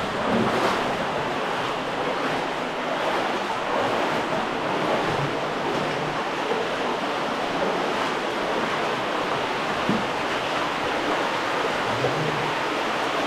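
Steady rush of flowing water, a cave stream running over rock.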